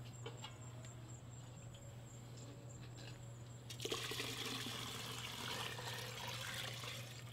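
Used deep-frying oil poured through a strainer into a pot: a soft, steady trickling pour that starts about halfway through, over a low steady hum.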